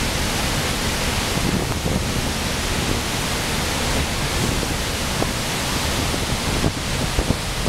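The Rhine Falls' churning white water rushing in a steady, unbroken wash of noise, heard close up from a small open boat.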